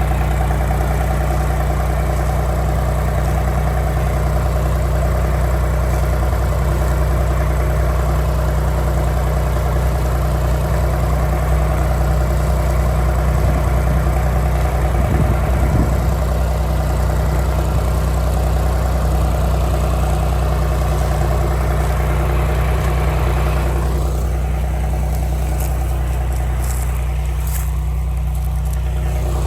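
An engine running steadily at a constant speed, with a small swell about halfway through.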